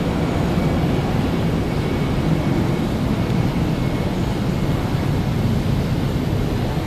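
Steady low rumble with a hiss above it, with no distinct events.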